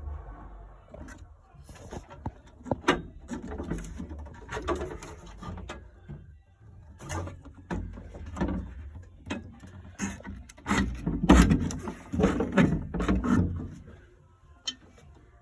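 Tools and boiler parts being handled: an irregular run of clicks, knocks and scrapes, loudest between about eleven and thirteen seconds in.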